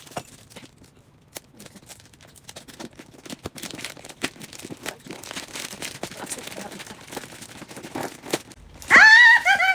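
Packaging being torn and crinkled open, with scattered crackles and clicks. Near the end a brief, loud, high-pitched cry cuts in.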